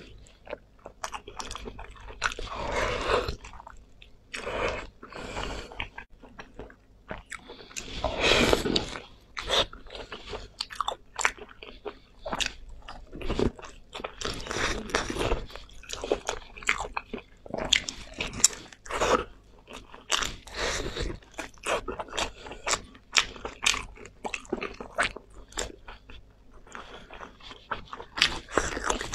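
Close-miked eating: a person biting and chewing a chunk of braised meat in chili sauce. Irregular wet clicks run throughout, with several louder, longer bursts every few seconds.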